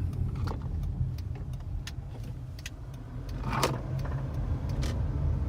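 Inside a moving 2013 Hyundai Sonata: steady low road and drivetrain rumble with a run of sharp, irregular clicks, one louder than the rest about three and a half seconds in. This is the clicking the owner takes for a bad CV axle.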